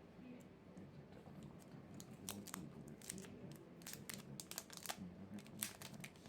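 Packaging of a new phone box being opened: faint crinkling and tearing of plastic wrap and cardboard, with a quickening run of small sharp crackles from about two seconds in.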